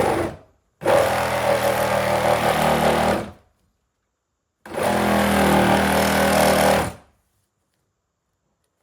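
Reciprocating saw cutting through a wooden 2x4 plate, run in bursts: a run stops just after the start, the saw runs again for about two and a half seconds, pauses for about a second, runs another two and a half seconds, then stops.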